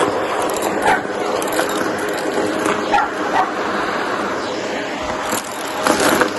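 Shark vacuum cleaner running steadily, with a dog giving a few short yips over it: about a second in, twice around three seconds, and once near the end.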